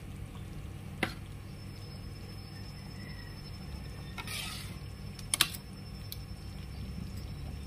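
A metal spoon clinks against a pan of simmering rendang: one click about a second in, a short scrape a little before the middle, then a quick double click, the loudest sound, at about five and a half seconds. Under it runs the low steady hum of the stove flame.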